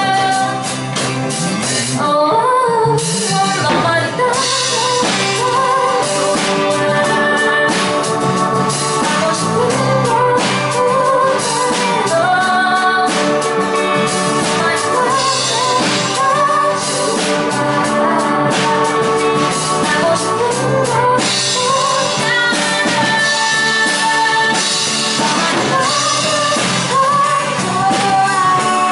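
Live band playing a song: a woman sings the lead over acoustic guitar, electric guitar, electric bass, a Kurzweil keyboard and a drum kit.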